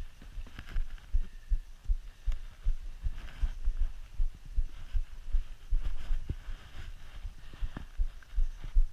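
Low, irregular thuds, about two or three a second, from a climber's boots stepping on rock and jolting a body-mounted action camera, with faint hiss above them.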